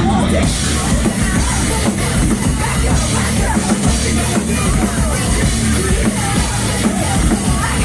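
A live band playing a loud, heavy rock song, with drums and a shouted vocal over the full band.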